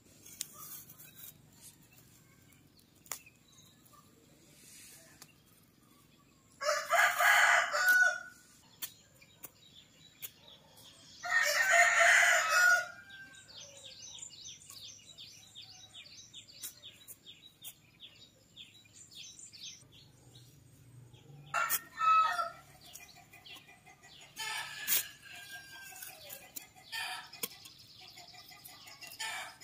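A rooster crowing: two long, loud crows about seven and twelve seconds in, then shorter calls later on. Between them a run of quick high bird chirps.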